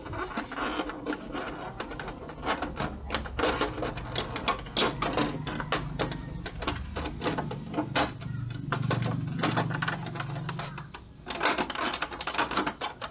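Plastic housing of an Epson L120 inkjet printer being handled and pressed into place during reassembly: a busy run of clicks, taps and rattles of plastic parts. A low hum swells under the clicking in the middle.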